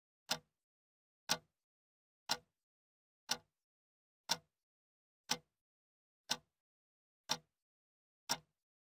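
A clock ticking once a second: nine short, crisp ticks, evenly spaced, with silence between them.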